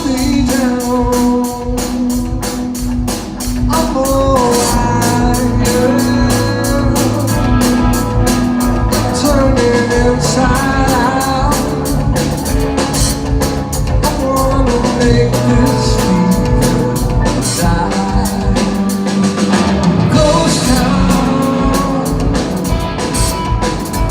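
A rock power trio playing live: a drum kit keeps a steady, busy beat with cymbals, under electric guitar melody lines and a moving bass line.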